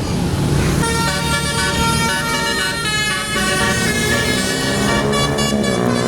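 Telolet basuri multi-tone bus horn playing a melody of steady notes that step from one pitch to the next, starting about a second in, with the notes sliding downward near the end. The bus's engine runs low underneath.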